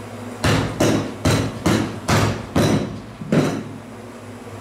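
Seven heavy strikes, about two a second, as a cleaver is driven through a crocodile tail's bony, scaled hide onto a plastic cutting board.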